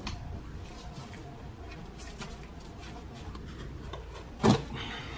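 Gloved hands working the plastic-and-rubber air inlet pipe off a 1.4 litre Volkswagen turbo engine: rubbing and light clicks of the pipe and its fittings, with one brief loud knock about four and a half seconds in.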